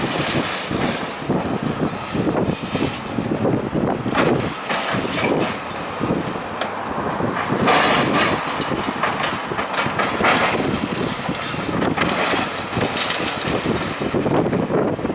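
Building demolition: concrete and masonry debris crashing and clattering down again and again over a continuous noise of heavy work.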